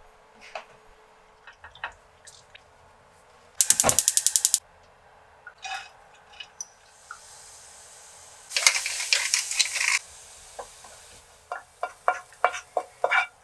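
Kitchen handling sounds: a one-second burst of rapid, evenly spaced ratcheting clicks about four seconds in, then a loud hiss and patter for over a second as diced carrots go into a frying pan, and near the end a quick run of sharp clicks and taps as a spatula scrapes the carrots from the pan into a glass bowl.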